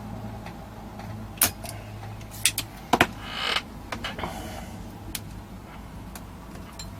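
Sharp clicks and taps of hand tools on a circuit board, several in the first few seconds, with a short creaking scrape about three seconds in, as a capacitor is worked out of an amplifier board. A low steady hum runs underneath.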